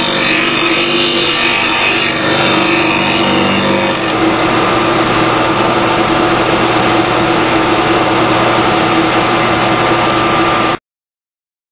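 Lawn mower blade being ground on the 1-inch grinding wheel of a MAG-8000 blade sharpener: harsh grinding over the machine's steady hum. About four seconds in the grinding stops and the wheel runs on free with a steady hum and tone, then the sound cuts off suddenly near the end.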